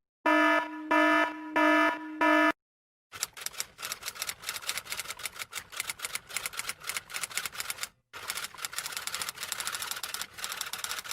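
Four short electronic beeps, then a long run of rapid clacking keystrokes like a typewriter being typed on, pausing briefly about eight seconds in.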